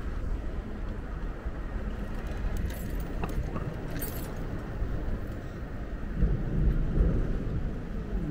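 Street traffic and road noise heard from a moving electric bike, with a steady low rumble. There are a few light clicks and rattles about three and four seconds in, and the noise swells briefly about six to seven seconds in.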